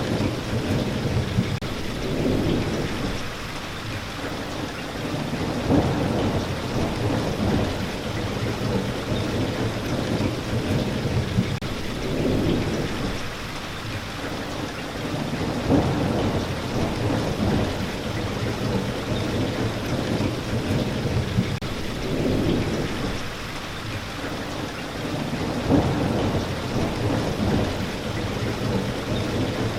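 Steady rain falling, with low rolling rumbles of thunder swelling and fading every few seconds.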